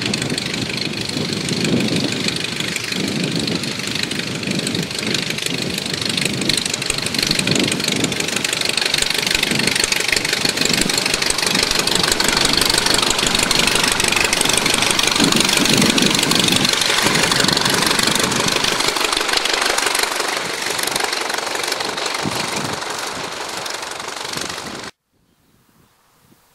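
de Havilland Tiger Moth's four-cylinder Gipsy Major engine and propeller running steadily, with a pulsing low throb under a loud propeller hiss. The low throb thins out toward the end, and the sound cuts off suddenly near the end.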